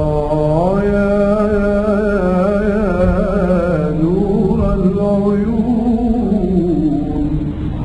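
A man singing one long drawn-out melismatic phrase of a religious qasida. The voice rises about half a second in, wavers through ornamented turns, and slides down near the end.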